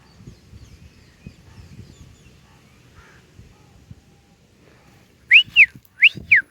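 Faint low background noise, then, about five seconds in, three short, clear whistles in quick succession, each rising and falling in pitch.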